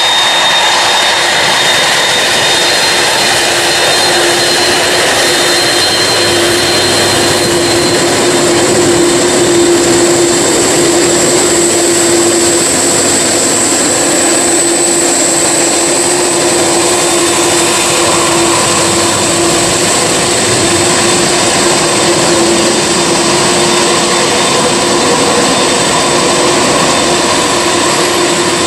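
Lockheed C-5 Galaxy's four turbofan engines running as the transport taxis. A loud, steady jet noise carries a high, even whine throughout.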